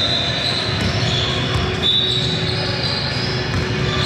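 Basketball game play in a gym: sneakers squeak on the court floor several times in quick succession over steady court noise, with the ball bouncing.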